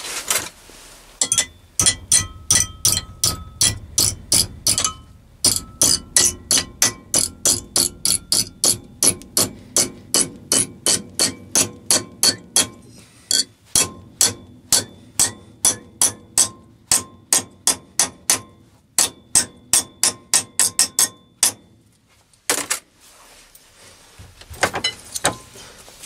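Hammer striking a brass strip clamped in a steel bench vise, bending it over to a right angle: a steady series of sharp, ringing metal taps, about three a second, with two short pauses, stopping a few seconds before the end.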